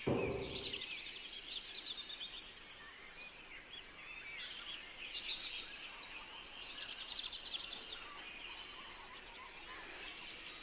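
Faint twittering of small birds, many quick chirps overlapping, with a soft low thud right at the start.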